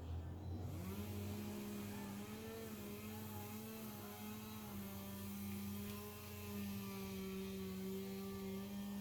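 Small electric motor whirring steadily. It starts about a second in, and its pitch shifts slightly up and down as the load changes.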